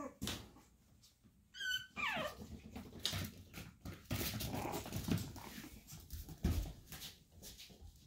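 Chihuahua puppies at play: a short high yip and a whine falling in pitch about two seconds in, then scuffling and several knocks as they tussle.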